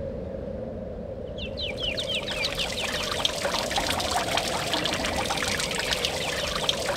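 Small fountain's water pouring and splashing into its stone basin, with many quick high plinks of drops. The splashing comes in about a second and a half in, over a steady low hum.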